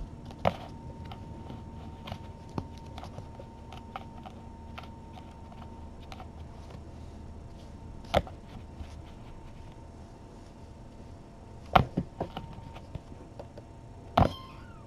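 Irregular light clicks and taps, with a few louder sharp knocks, over a steady faint electrical hum.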